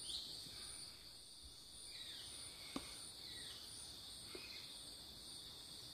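Faint, steady high-pitched drone of insects, crickets or cicadas, in two pitch bands, the upper one pulsing evenly. There is a single soft click a little under three seconds in.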